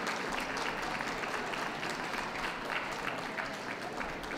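Audience applauding steadily: many hands clapping at once in a dense, even patter.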